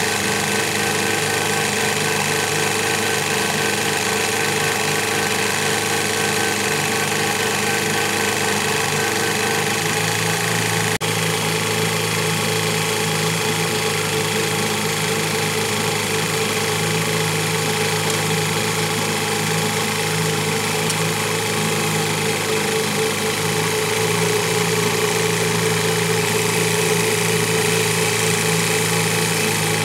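A boat motor running steadily under way while towing a kayak on a rope. Its note changes slightly about ten seconds in.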